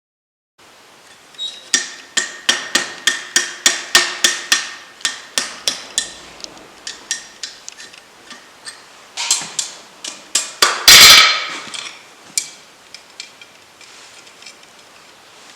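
Rounding hammer striking a hot steel rod on an anvil: a steady run of ringing blows, about three a second, then a shorter second run. About eleven seconds in comes a harsher, longer metallic clash, the loudest sound, followed by a few light taps.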